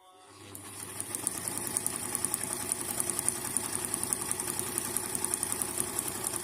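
Old Brother Riviera 110 sewing machine running a test seam after a thread-tension adjustment: a fast, even stitching rattle that speeds up over the first second, runs steadily, then stops abruptly.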